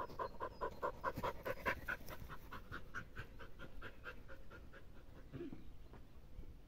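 Black-and-tan mongrel dog panting rapidly with its mouth open, about five quick breaths a second, fading away after about four seconds.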